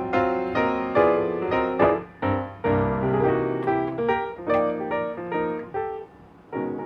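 Piano music playing a melody over chords, cut off abruptly at the end.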